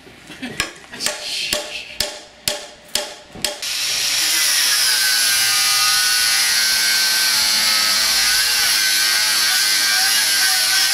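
A hand hammer strikes a wooden beam about seven times. About four seconds in, an angle grinder starts grinding metal, running steadily with a high whine and throwing sparks.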